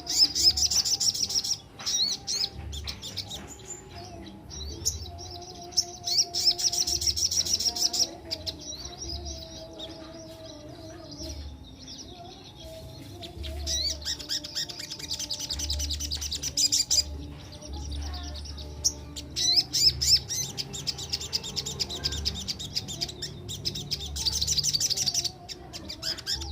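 Spiderhunter (sogok ontong) singing loud, very rapid rolling trills of high repeated notes, in bursts of two to three seconds with short pauses between them. Softer, lower warbling runs underneath.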